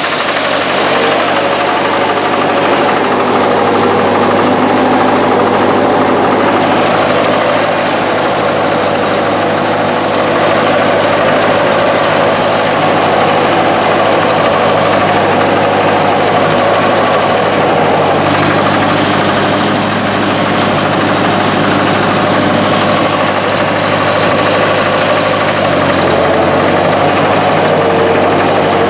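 Massey Ferguson 202's Continental Z134 four-cylinder engine running steadily, its note shifting a little about two-thirds of the way through and again near the end.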